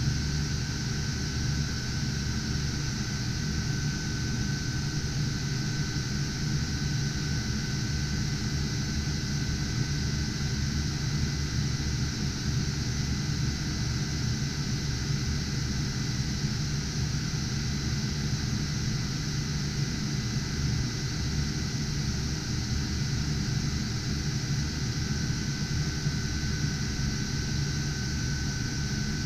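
Steady whoosh of many cooling fans on GPU cryptocurrency mining rigs, a low hum with a thin constant whine above it.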